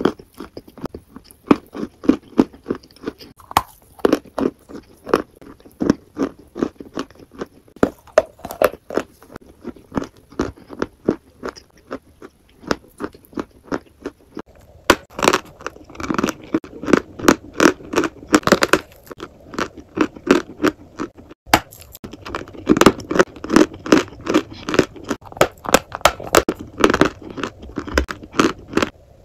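Close-miked biting and chewing of a crumbly chalk-like lump: a rapid run of sharp dry crunches, growing denser and louder about halfway through.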